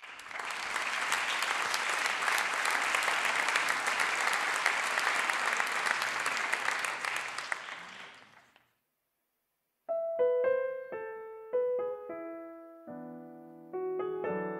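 Audience applauding, fading out after about eight seconds. After a second of silence a solo grand piano begins, with separate notes and chords struck and left ringing.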